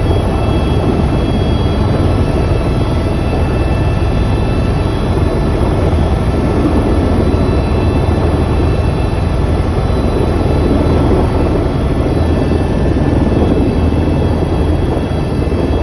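Steady, loud engine and cabin noise heard from inside a moving vehicle, an even low rumble that holds without a break.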